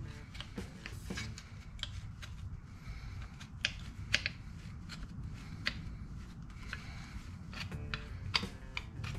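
Irregular sharp metallic clicks and taps from hand-tool work on sheet steel, a few a second with a louder cluster about four seconds in, over faint background music.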